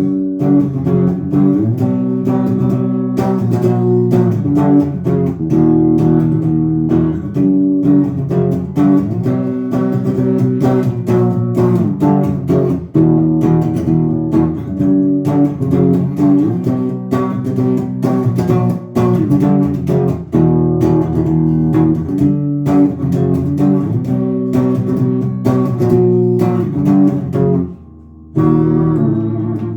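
Guitar-led instrumental music: steady strummed chords over a bass line. There is a brief break about 28 seconds in, then a last chord that rings and fades out.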